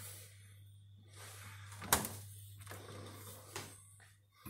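Freezer door being shut, with one sharp thud about two seconds in and a lighter knock later.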